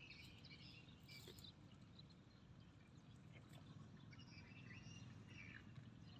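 Faint outdoor ambience: scattered chirps of small birds or insects over a steady low rumble.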